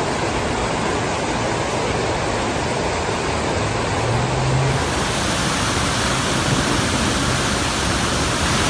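Fast-flowing floodwater rushing through a street, a steady rush of churning water, with a faint low hum about four seconds in.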